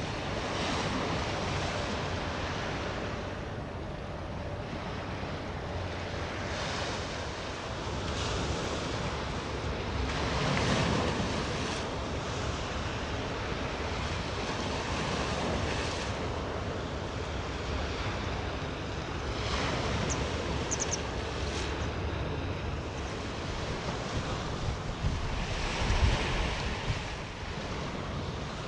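Sea waves washing ashore, surging every few seconds, with wind buffeting the microphone; one strong low wind thump near the end.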